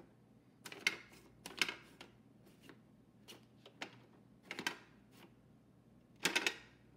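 Plastic clicks and clunks from a Fisher-Price toy cash register as its keys are pressed and wooden dowel coins drop through inside. Near the end comes a quick run of three louder clacks as the side lever is worked.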